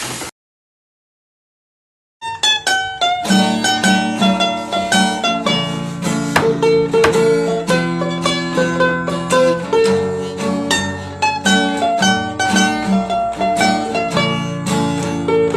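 A brief burst, then a gap of silence, then fast-picked plucked-string music like a mandolin or banjo tune starts about two seconds in and runs on.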